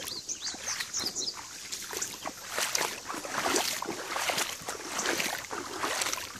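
Irregular splashing and sloshing in shallow creek water and wet mud, with a few short high bird chirps in the first second.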